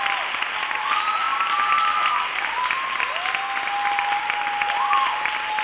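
Theatre audience applauding steadily, a dense patter of many hands clapping, with a few held and gliding tones riding over the clapping.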